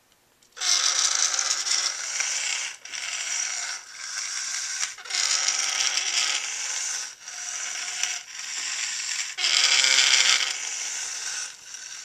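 Two small DC gearhead motors driving a robot's wheels on a concrete floor: a gear whir in runs of one to two seconds, with short breaks as the motors stop and start again.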